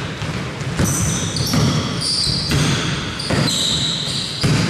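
Basketball game on a court: a ball bouncing on the floor a few times, with short high-pitched sneaker squeaks.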